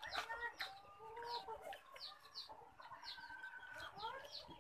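Chickens clucking in the background, with a run of short, high, falling chirps repeating several times a second.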